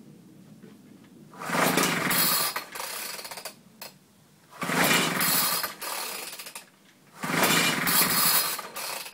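A propeller-driven blower motor on a bench test stand, being hand-started. It catches and runs for about two seconds, then dies, three times over. These are the first start attempts, with the engine not yet keeping running.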